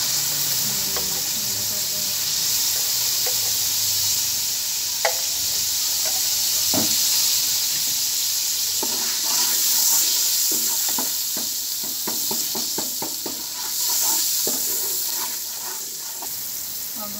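Hot cooking oil sizzling steadily in a large metal pot, with salt just stirred in. From about the middle, a run of short clicks and scrapes as a spatula stirs it, while the sizzle eases slightly near the end.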